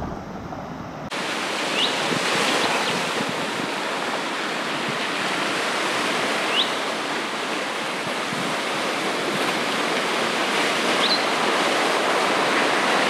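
Sea surf washing into a rocky, pebble-lined cove: a steady rush of waves, with a few short rising chirps over it. About a second in, a lower rumble cuts off as the surf sound begins.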